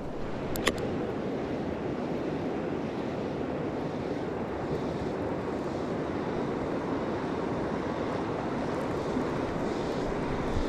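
Steady rushing outdoor noise, like moving water or wind on the microphone, with one sharp click a little under a second in.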